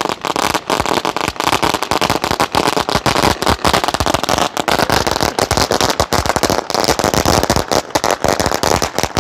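A Cock brand 10,000-cracker firecracker string (ladi) burning down, its crackers going off one after another in a rapid, unbroken run of bangs.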